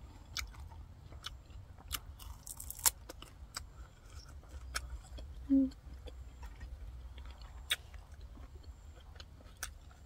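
Close-up chewing of crisp raw herbs and vegetables dipped in chilli sauce: irregular crunching clicks as the leaves are bitten and chewed. A short hummed 'mm' comes about halfway through.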